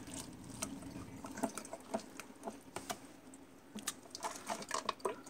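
Faint, irregular drips, patters and light plastic clicks as the wet, chaeto-packed basket of an AquaMaxx algae reactor is lifted out.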